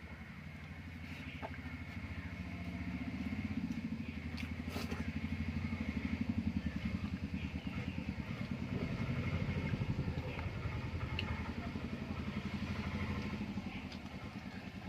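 A motor vehicle's engine running with a fast low throb, growing louder toward the middle and easing off near the end.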